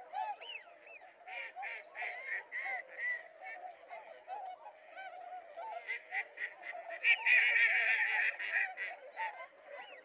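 A flock of mallards calling continuously: many short quacks and nasal calls overlap. About seven seconds in, a louder burst of calls lasts around two seconds.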